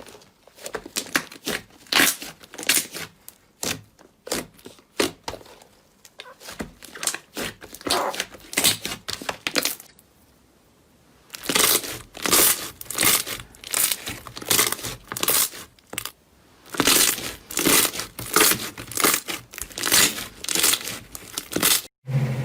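Slime being squeezed, pressed and pulled by hand: a run of short, sharp sticky noises, two or three a second, pausing briefly about ten seconds in and cutting off abruptly near the end.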